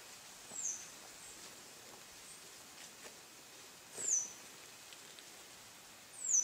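A bird calling in forest: three short, high whistled notes, each dropping in pitch, a few seconds apart, the last the loudest, over a faint steady background hiss.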